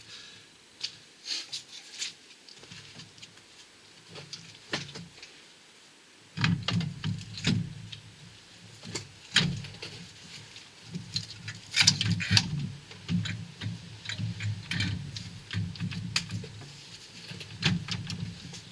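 Irregular metallic clicks, taps and knocks of hand work on a car's gearbox and clutch. A low steady hum starts suddenly about six seconds in and continues under them.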